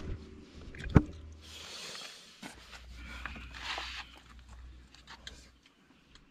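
A single sharp knock about a second in, then rustling and shuffling handling noises over a low steady hum.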